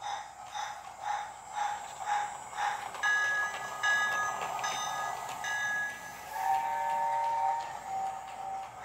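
Toy Hogwarts Express train set's sound unit playing recorded steam-locomotive chuffing, about two and a half beats a second, then a steam whistle in several short blasts from about three seconds in, with lower whistle tones near the end.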